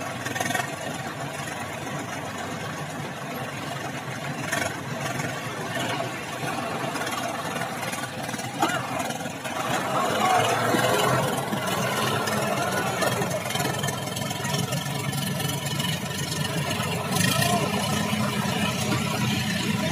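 Tractor diesel engines running steadily, the Sonalika DI 35 labouring under a full load in soft ploughed soil where it is stuck; the engine noise gets louder about halfway through.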